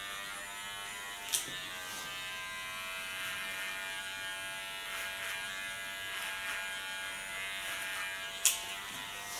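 Cordless hair clipper buzzing steadily as it cuts hair over a comb on the side of the head. Two short, sharp clicks stand out, about a second in and near the end.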